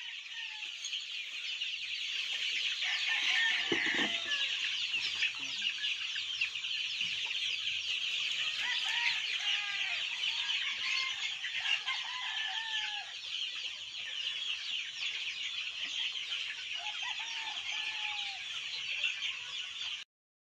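A large flock of chickens clucking and calling, over a dense, constant high-pitched chirping; the sound cuts off suddenly near the end.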